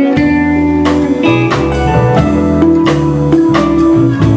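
Instrumental band music with no singing: bass and held keyboard chords changing about once a second, guitar, and a steady drum beat.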